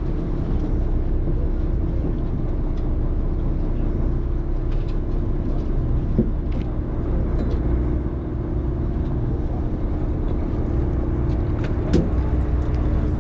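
Sportfishing boat's engine running steadily: a continuous low drone with a steady hum. A few short clicks from handling gear on deck, the sharpest about six seconds in and near the end.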